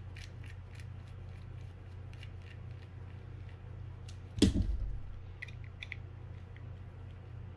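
Small clicks and ticks of screws and a small screwdriver being handled while screws are fitted into a Daiwa Sealine 300H reel, with one louder knock about four and a half seconds in, over a steady low hum.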